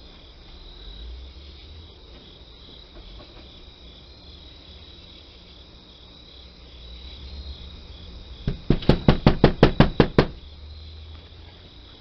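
A rapid burst of about a dozen hard knocks, roughly seven a second for under two seconds, about three-quarters of the way in. Under it runs a steady faint high-pitched drone.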